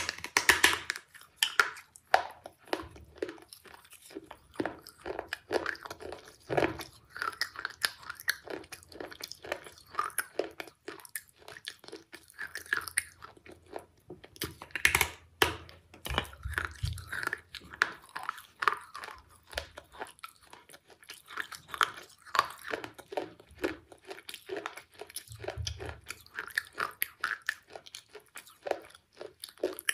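A person biting off and chewing something hard and brittle, with irregular loud crunches throughout.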